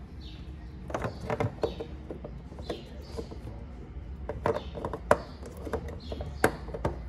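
Hard plastic clicking and knocking as a Hyundai HB20 headlamp's rear dust cap is pressed onto the housing and turned to lock, the loudest clicks about five and six and a half seconds in. A steady low hum runs underneath.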